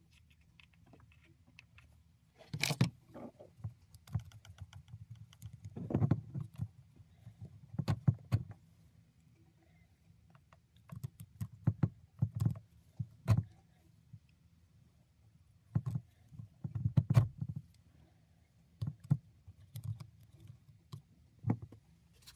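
Handling noise from a small 12V motor-driven gear oil pump as grease is brushed onto its pinion and gears: irregular clicks, metallic taps and light knocks, in clusters every few seconds. The motor is not running.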